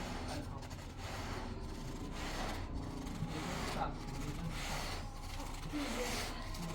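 Repeated rubbing or scrubbing strokes, a little more than one a second, in a steady rhythm.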